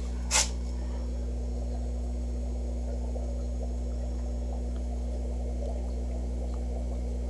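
Steady hum of fish-room aquarium pumps and filters running: a low electrical drone with faint water trickling and bubbling. A short sharp click about half a second in.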